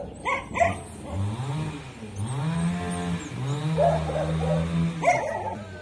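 Dogs barking: a couple of sharp barks near the start and another near the end, with three long, low drawn-out calls in between, each rising at first and then held.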